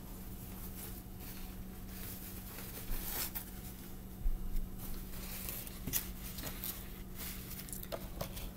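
Rustling and scattered light knocks of someone moving about and handling things at a table, then sitting down, over a steady low hum.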